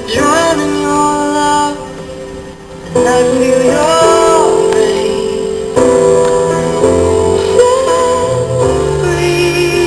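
Music: a woman singing held, wavering notes over a sustained instrumental accompaniment.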